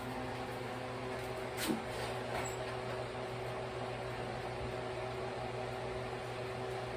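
Steady hum of a running appliance or fan, with one short knock a little under two seconds in.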